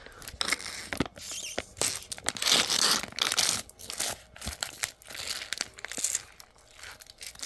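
Foil juice pouch crinkling in the hand, in irregular rustles and sharp crackles.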